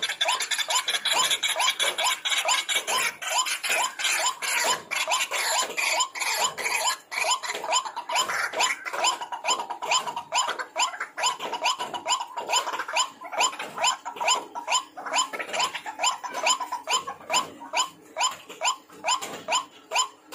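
White-breasted waterhen (ruak-ruak) calling: a fast, unbroken series of harsh, grunting notes, about three a second.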